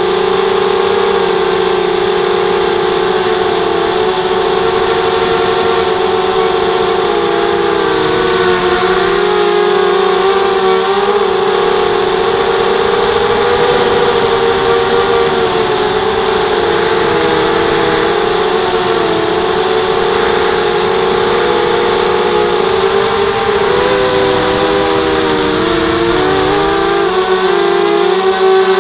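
Quadcopter's four RCTimer 2300 kV brushless motors spinning 5x3 carbon props, heard from the onboard camera: a loud, steady buzzing whine whose pitch wavers up and down as the throttle changes, most of all near the end.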